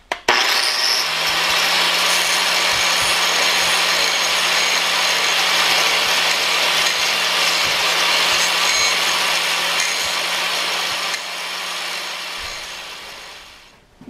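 4-inch angle grinder with a new grinding wheel running and grinding the steel teeth off an arbor press's gear-rack ram, a steady motor hum under harsh continuous grinding. Near the end the grinding eases and the grinder winds down.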